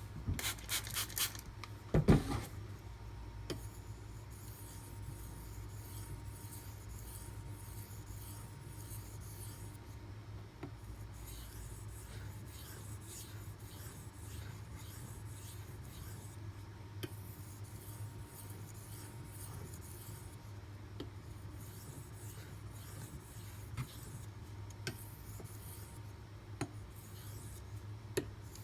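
Steel knife blade stroked back and forth across a sharpening whetstone: a rhythmic run of scraping strokes, with a loud knock about two seconds in.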